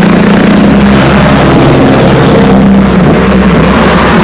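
Road traffic passing close by: a motor vehicle's engine hum over the hiss of tyres on the road, easing off near the end.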